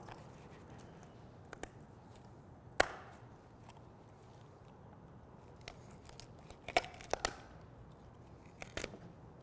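Wüsthof poultry shears cutting through a raw turkey's ribs alongside the backbone: a few sharp snips, one about three seconds in and several more near the end.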